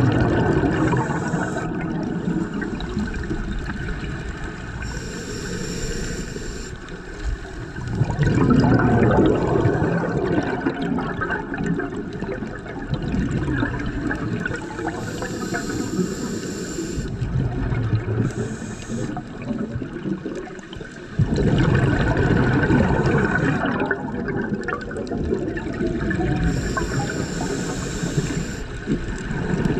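Scuba diver breathing through a regulator underwater, about three breaths: a high hiss on each inhale, then a long gurgling rush of exhaust bubbles on the exhale.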